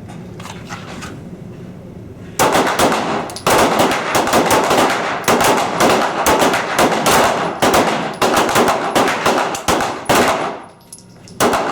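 A firing line of police officers' pistols shooting a timed string together: a rapid, overlapping run of shots that starts about two seconds in and stops shortly before the end, then one last shot.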